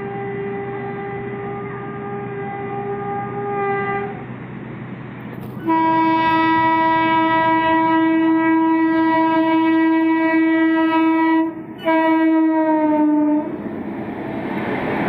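Electric locomotive's air horn sounding long blasts as a WAP-7 nears: one note for about four seconds, then after a short gap a louder, lower blast of about six seconds, a brief break, and a final blast that sags in pitch as the locomotive passes. Then the rushing rumble of the train running through.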